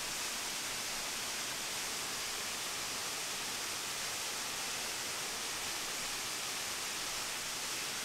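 Waterfall running, a steady even rush of water with no changes.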